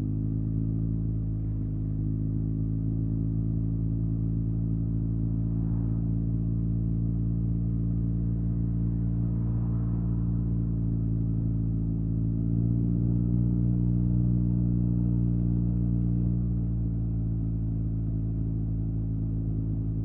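Yamaha TMAX 560's parallel-twin engine through an Akrapovic carbon full exhaust system, running at a steady cruising speed. About twelve seconds in the revs and loudness rise a little for a few seconds, then settle back.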